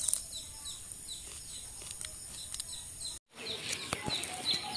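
Small birds chirping over and over, each chirp a short falling note, two or three a second, with a few clicks. The sound cuts out for an instant about three seconds in, and after that the chirping is louder.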